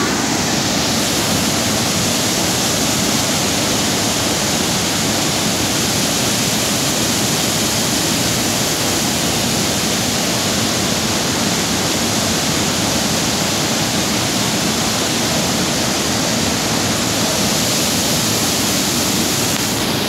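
Waterfall and rushing river water: a loud, steady rush of noise with no pauses.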